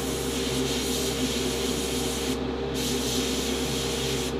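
Airbrush spraying paint in a steady hiss, with a short break about two and a half seconds in and cutting off near the end.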